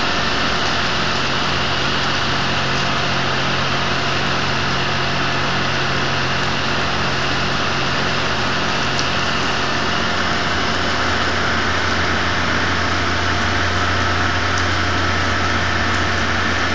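Steady heavy rain falling on wet paving, with a low steady hum underneath that drops in pitch about ten seconds in.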